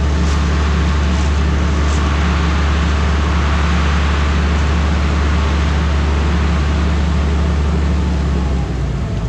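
Dump truck's diesel engine running steadily to drive the hydraulic hoist as the pup trailer's dump box tips up, with a rushing hiss from the load sliding out. Near the end the engine note changes and dips briefly.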